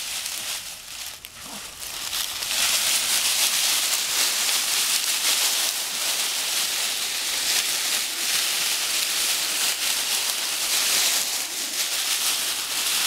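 Dry fallen leaves rustling and crackling as schipperke puppies run and wrestle through them. The sound is quieter about a second in and becomes a steady, dense crackle from about two seconds in.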